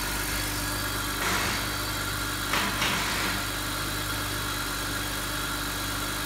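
BMW M52B25TU 2.5-litre straight-six idling steadily, with two brief noises about one and two and a half seconds in.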